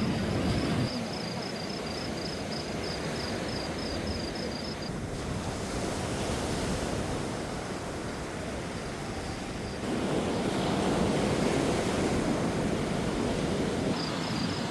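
Sea waves washing onto the shore, a steady rush of surf with wind; the wash swells louder about ten seconds in.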